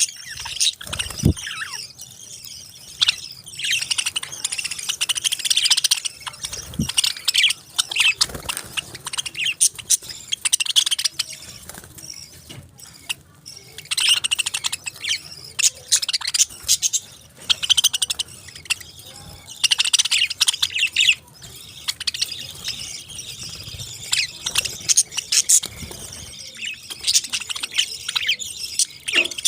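Pet parakeets chirping and chattering in rapid, high-pitched bursts, with short lulls between flurries.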